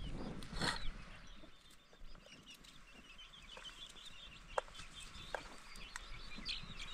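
Chickens clucking, a scatter of short calls.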